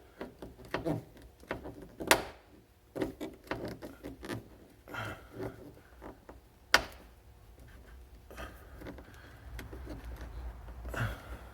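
Scattered clicks, rattles and knocks of hand work on a Jeep Comanche door as screws and door parts are handled and fitted, with two sharp knocks about two seconds and about seven seconds in.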